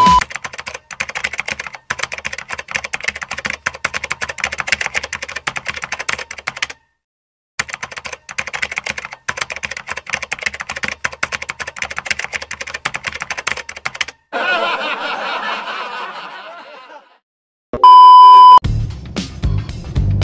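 Typewriter sound effect: rapid key clicks in two runs of several seconds each. A different sound follows, fading over about three seconds, then a short loud steady beep near the end, and music comes in.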